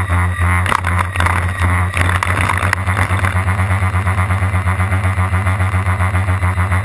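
Four electric motors of a large RC flying boat driving their propellers at takeoff power: a loud steady drone that pulses regularly, with a hiss of water spray against the hull in the first few seconds of the takeoff run.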